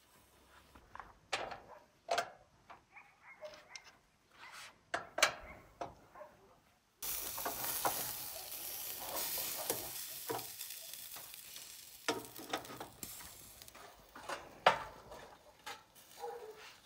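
Scattered clinks and knocks of a utensil against cookware, then about seven seconds in a sudden loud sizzle of food frying that slowly dies down, followed by more clinks and scraping of a utensil stirring.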